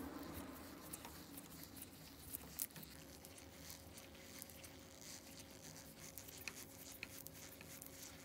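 Faint scraping and scattered small clicks of a thin screwdriver turning small screws into the metal top plate of a wooden pepper grinder.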